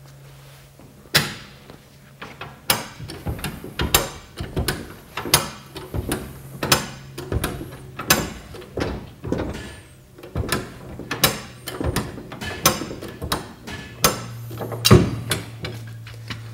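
High-lift jack being pumped to lower a load: a rhythmic metallic clacking that starts about a second in, a sharp clank every 0.7 seconds or so with lighter clicks between, as the jack steps down one notch per stroke of the handle.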